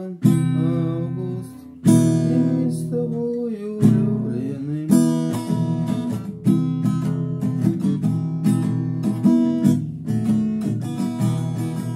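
Acoustic guitar strummed: a few single full-chord strums left to ring and fade in the first four seconds, then steady rhythmic strumming from about five seconds in.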